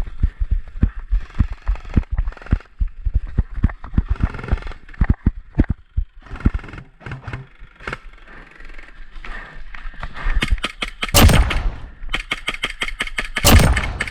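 Airsoft LMG firing full-auto in two long bursts of rapid clicking shots, starting about ten seconds in with a brief pause between them. Before that come irregular low thumps and rustling, the kind that come from moving about with the camera.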